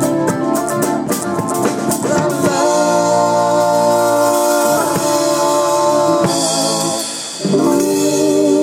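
Rock band playing an instrumental stretch of a song, with drums, bass and guitar: a busy percussion beat at first, then long held chords. The music dips briefly about seven seconds in and comes back with new held notes that slide into pitch.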